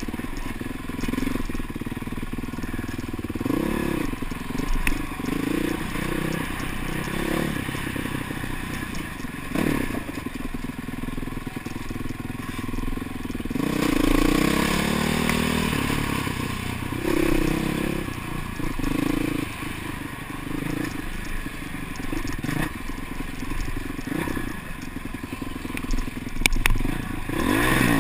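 Dirt bike engine revving up and down as the bike is ridden along a trail, with a few sharp knocks and rattles from the ride.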